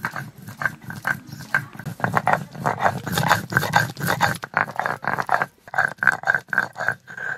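Stone roller grinding ginger, garlic, green chilli and cumin into a wet paste on a flat stone slab (sil-batta): rhythmic back-and-forth grating strokes, several a second, quickening in the last couple of seconds.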